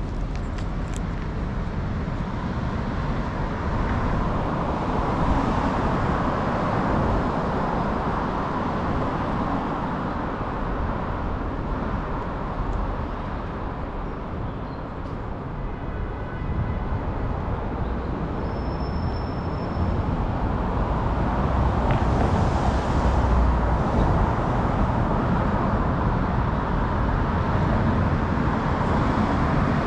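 City street traffic: a steady wash of passing cars and buses that swells and eases as vehicles go by. A short high tone sounds a little past the middle.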